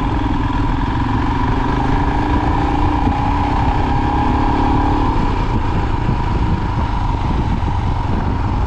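Motorcycle engine running steadily, with a heavy low rumble beneath it.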